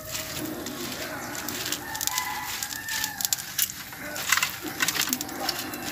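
A rooster crowing once, a drawn-out call about two seconds in, over scattered sharp clicks and crackles.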